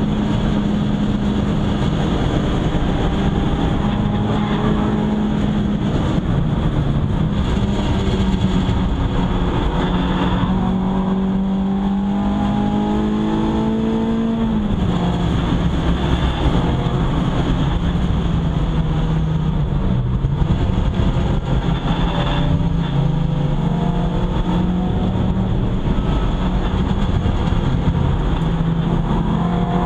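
Renault Clio 172's 2.0-litre four-cylinder engine pulling hard around a race track, heard from inside the stripped cabin over loud road and wind noise. The engine note climbs and falls with throttle and gear changes. The biggest climb ends in a sharp drop about halfway through, and it rises again near the end.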